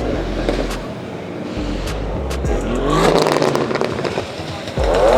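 A car engine revving hard as it pulls away, its pitch climbing sharply about three seconds in and again near the end, over background music.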